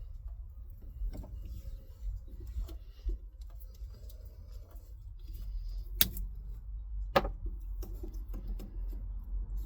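Tape being pulled off the roll and wrapped around a wiring connector to hold a broken clip: small handling rustles and taps, with two sharp snaps a little over a second apart past the middle, over a steady low rumble.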